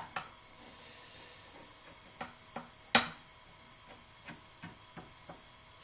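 Spatula tapping and scraping against the edge of a frying pan while loosening the edges of a cooking crêpe: scattered light ticks, with one sharper knock about three seconds in.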